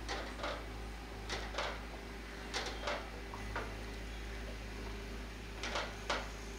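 Wooden spatula knocking and scraping against a pan while stirring semolina into boiling water for rava kesari: about a dozen light knocks, some in pairs, over a steady low hum.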